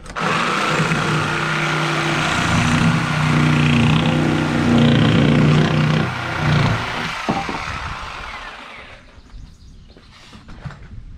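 Reciprocating saw (Sawzall) with a coarse pruning blade cutting through a not-fully-dry timber, running hard for about six seconds, then easing off and dying away.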